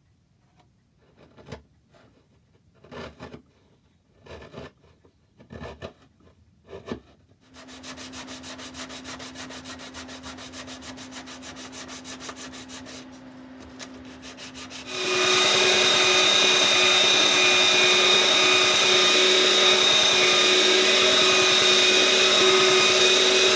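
Power sander sanding the wooden grandfather clock door flat over its glued-in wedges. A few knocks of handling come first, then the sander runs steadily and quietly, and about two-thirds of the way in it becomes much louder and keeps running.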